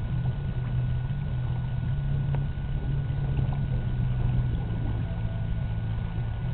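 An engine running steadily: a low, even hum with a faint steady whine above it.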